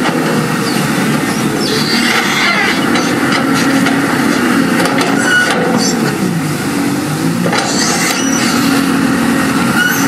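Crawler bulldozer working: its diesel engine runs steadily under load while the steel tracks give a few short squeaks and clicks.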